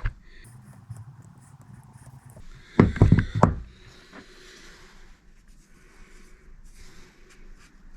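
A quick cluster of four or five knocks, loudest about three seconds in, as the cut-open door closer is handled, with faint handling noise otherwise.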